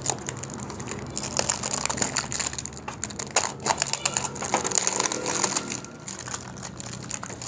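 Clear plastic wrap crinkling and crackling in irregular bursts as it is cut open and pulled off a new motorcycle cylinder. A steady low hum runs underneath.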